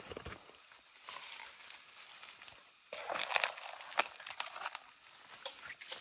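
Footsteps crunching and rustling through dry bamboo leaves and twigs on a stony forest floor. The crunching comes in irregular bursts with sharp snaps, loudest about three to four and a half seconds in.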